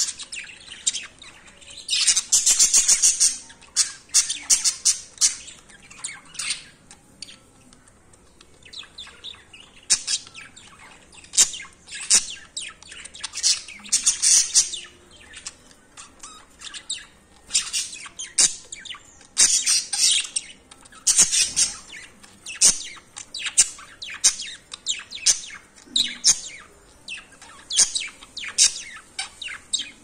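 Budgerigars chirping and chattering in rapid bursts of short, high warbling notes while a pair mates on a perch, with louder clusters of chatter coming and going.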